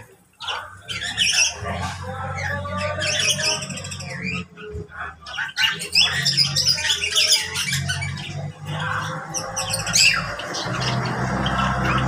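A mixed aviary flock of parakeets, lovebirds and mynas squawking and chirping over one another. A low steady hum runs underneath.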